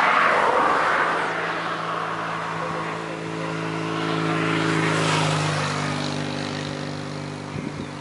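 Motor vehicle engine running with a steady hum, while the rush of passing traffic swells near the start and again about five seconds in.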